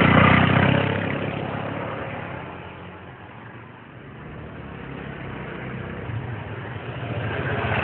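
Motor scooter engine pulling away and fading into the distance, then growing steadily louder again as the scooter rides back toward the listener.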